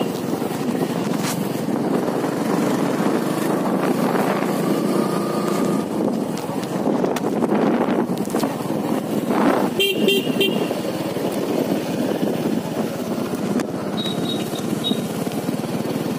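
Motorcycle engine running steadily with wind rush, heard from on the moving bike. A vehicle horn beeps briefly about ten seconds in.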